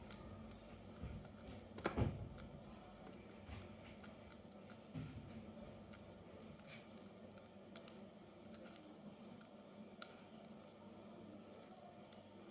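Faint handling of toys and plastic packaging: scattered light clicks and taps, with a soft thump about two seconds in and a sharp click near the end.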